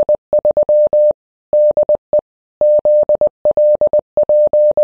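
Morse code: a single steady beep keyed on and off in short dots and longer dashes, with longer gaps between characters, like a ham radio CW signal.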